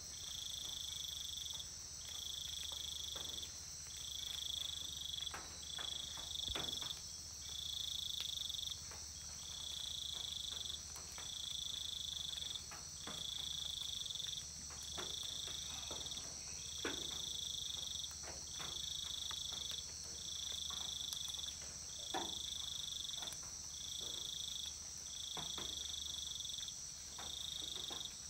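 Amazon rainforest insect chorus. One high chirring call pulses on and off about every second and a half over a steady, higher-pitched drone, with faint scattered clicks.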